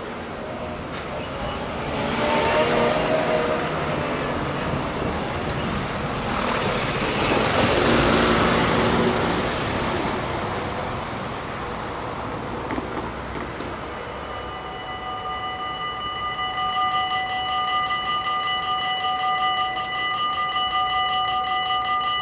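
Road vehicles driving over a level crossing, their engine and tyre noise swelling twice in the first half. About two-thirds of the way through, the crossing's warning bells start: a rapid, even ringing that goes on as the half-barriers begin to lower, signalling an approaching train.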